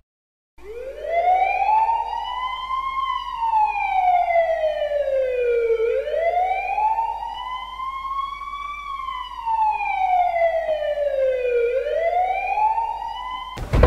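Police siren wailing, its pitch climbing and falling slowly about every six seconds, two full sweeps and the start of a third. It starts about half a second in and is cut off near the end by a sudden loud noise.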